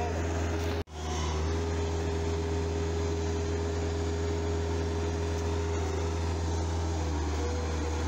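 Bobcat 753 skid steer's diesel engine running steadily close by, a constant low hum. The sound cuts out for an instant about a second in.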